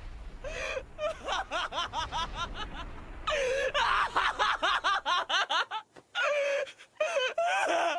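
A person's voice laughing in quick, rhythmic bursts over a low rumble; the rumble stops about five seconds in and a few longer vocal sounds follow.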